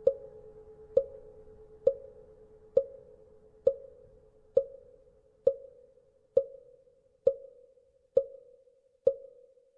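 A wooden fish (mõ) knocked at a steady pace, about one stroke every 0.9 seconds, eleven strokes in all, each with a short hollow ring. A lingering hum from a temple bell fades out during the first few seconds.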